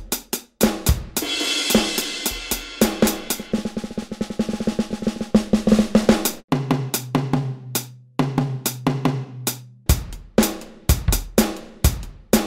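Electronic drum-kit samples from the Aeroband Pocketdrum app, triggered by swinging its motion-sensing drumsticks in the air. Snare, bass drum, hi-hat and cymbal hits run through a fast roll in the first half. Lower ringing tom hits come in the middle, then separate strikes near the end.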